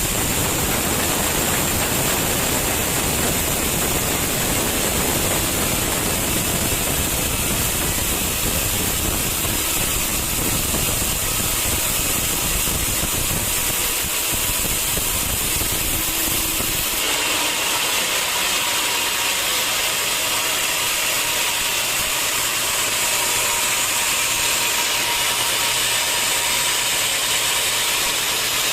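Sawmill machinery running steadily with a dense mechanical noise. About seventeen seconds in, the low rumble drops away and a higher hiss carries on.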